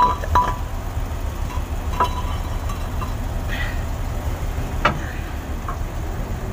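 Steel cylinder liner clinking against the cast engine block as it is lowered into the bore and seated, with a short ringing clink at the start and single light clicks about two and five seconds in. A steady low machine hum runs underneath.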